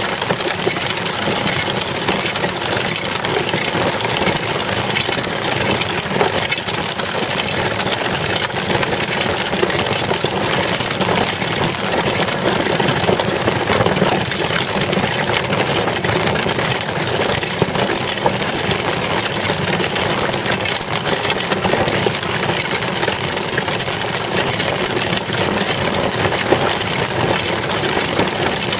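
Steady road noise of a child's bicycle rolling over rough asphalt, picked up right on the bike: tyre rumble with a dense, constant rattle.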